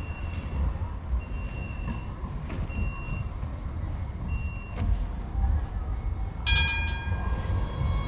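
Street rumble at a tram stop with short high beeps repeating every second or so, then about six and a half seconds in a sudden loud ringing of a tram's bell that keeps sounding.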